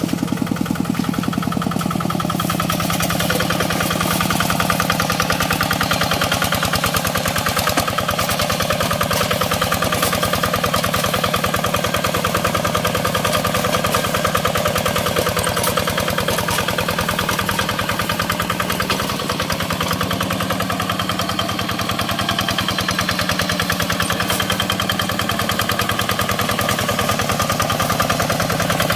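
Quick Impala two-wheel hand tractor's engine running steadily, with a fast, even firing beat and no breaks.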